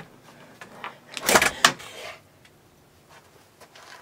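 A short loud clatter of knocks and rustling about a second in, as a lever-handled door is pushed open and people brush through the doorway.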